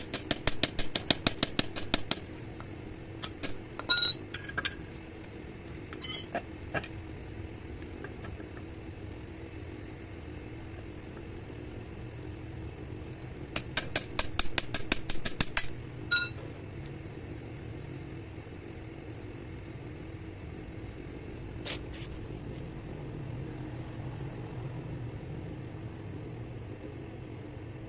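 Rapid light hammer taps on a steel rod set in a tube clamped in a bench vise, driving it down to cut grooves inside the tube. The taps come in two quick runs of about two seconds each, with a few scattered knocks between them. A steady low machine hum runs underneath.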